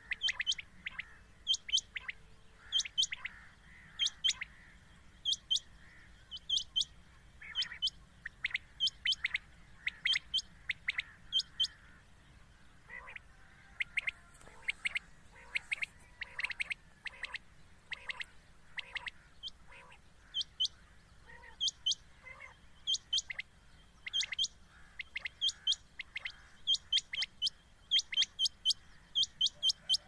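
Common quail calling: short, sharp, high call notes in quick groups of two or three, repeated over and over. This is a quail-call recording played as a lure for quail hunting.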